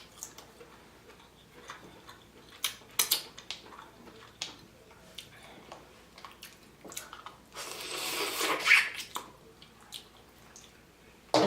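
Close-up wet eating sounds from a seafood boil: scattered sharp clicks and snaps, and about eight seconds in a longer, louder wet sucking sound.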